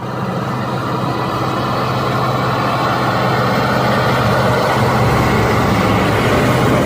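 Heavy truck engine running steadily with a low, even hum, fading in at the start.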